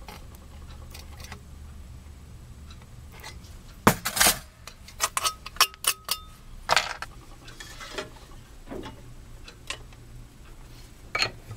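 Tin snips cutting thin copper sheet and the sheet being handled: scattered sharp metallic clicks and rattles over a low steady hum.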